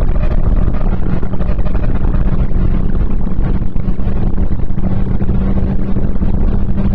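Renault Clio 1.6 16v four-cylinder engine running at steady revs under a dense rumble of road and wind noise, loud and distorted.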